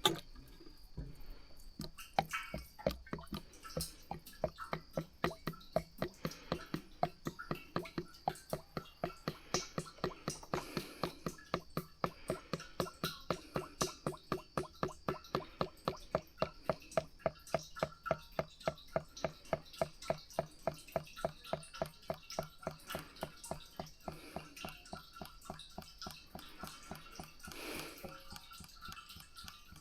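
Hydraulic fluid glugging as it is poured from a container into a John Deere 310D backhoe's hydraulic tank, in a steady rhythm of about two to three glugs a second that fades out near the end.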